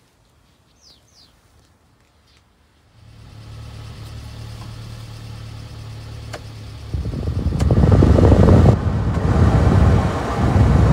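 Heater blower fan of a 1997 Subaru Sambar truck switched on about three seconds in, running with a steady low hum, then turned up about seven seconds in to a much louder rush of air from the dash vents. Two light clicks come from the fan-speed lever.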